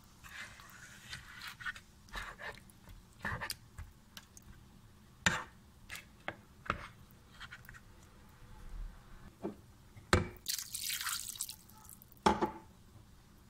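Thick chicken and potato curry gravy bubbling in a pot, with irregular wet pops from bursting bubbles and a short sizzling hiss about three-quarters of the way through.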